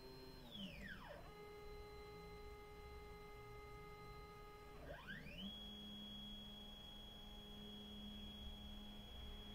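Faint whine of the CNC 1830's stepper motors: steady pitched tones that sweep down from high to low about half a second in, hold low, then sweep back up about five seconds in and hold high.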